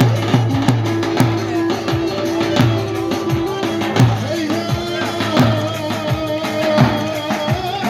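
Turkish folk dance music for a spoon dance: a davul bass drum beats a steady rhythm of about three strokes a second under a held, wavering melody line that steps up in pitch about halfway through. Sharp clacks ride on top, fitting the wooden spoons that the dancers click.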